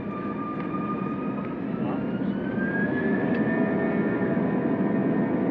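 Airbus A321 jet engines spooling up for takeoff, heard from inside the cabin: a steady rumble with a whine that rises in pitch about two seconds in while the sound grows louder.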